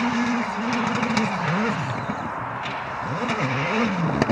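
Rally car engine revving up and down again and again as the car, off the road and stuck in the verge, tries to drive out. A steady rushing noise runs underneath, and a sharp click comes near the end.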